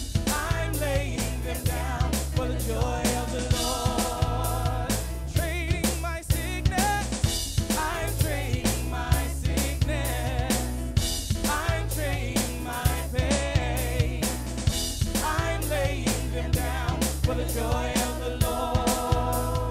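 Live contemporary worship band: several men and women singing together over keyboard and a steady drum beat.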